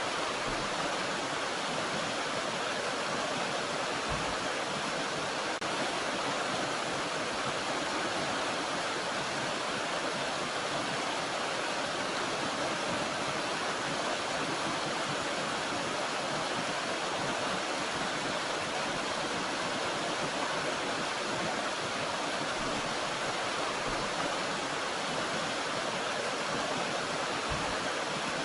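Water cascading down a small mountain stream, a steady, even rush with no change.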